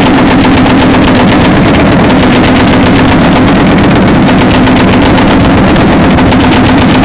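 Belt-fed machine gun firing one long sustained burst, the rapid shots running together, very loud.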